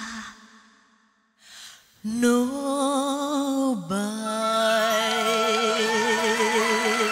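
Woman singing a Northern Vietnamese folk song: a phrase fades out into a brief pause, then she comes back in and, about four seconds in, holds a long note with vibrato.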